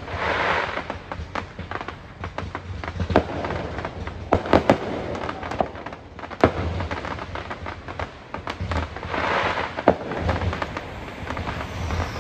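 Aerial fireworks exploding: a string of sharp bangs and pops, with longer crackling bursts near the start and about nine seconds in.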